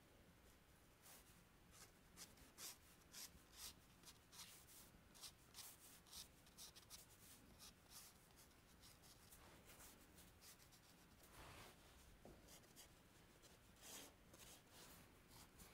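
Faint scratching of red chalk drawn across textured paper in short sketching strokes, about two a second, starting about a second in, with a few longer strokes in the second half.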